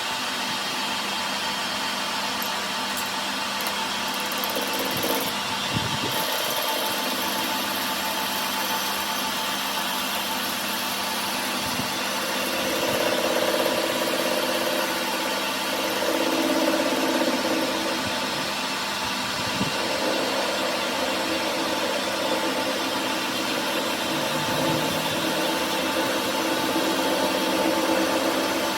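A workshop machine running steadily, its note swelling louder a few times around the middle and near the end.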